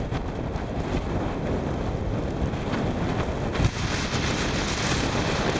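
Blizzard wind buffeting the microphone, a steady rushing rumble whose hiss grows stronger a little past halfway, with a brief thump at that point.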